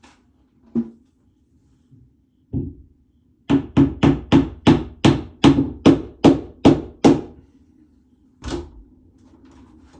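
Hammer blows: a couple of single knocks, then about eleven quick, evenly spaced strikes at roughly three a second, then one last knock.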